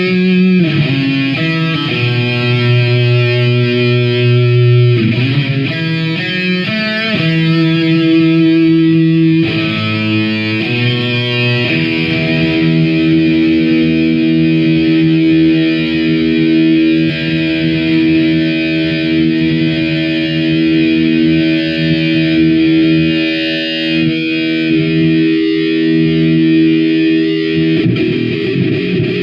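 Electric guitar through distortion playing a riff of long held notes that change every second or few. About twelve seconds in it settles on one chord that rings out for some sixteen seconds, then moves on near the end.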